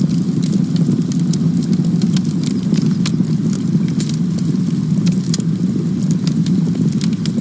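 Campfire crackling: irregular sharp snaps and pops over a steady low rumble.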